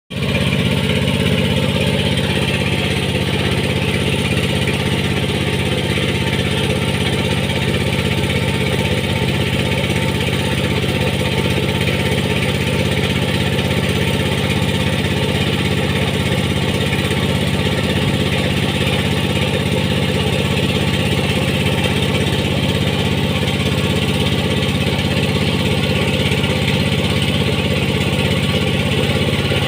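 An engine running steadily at idle, a constant low drone that holds the same pitch and level throughout.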